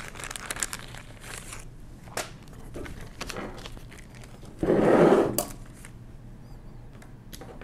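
Small clear plastic zip-lock bag crinkling as it is handled and laid on a table, loudest in one short rustle about five seconds in, with a few light clicks and taps.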